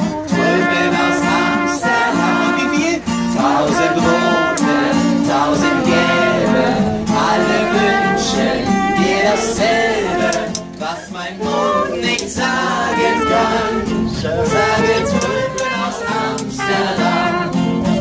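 Live music: acoustic guitar strummed in a steady rhythm, accompanying singing.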